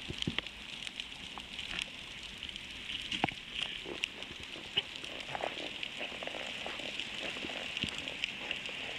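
Underwater ambience picked up through the camera housing: a steady crackling hiss full of scattered sharp clicks, with a louder knock about three seconds in.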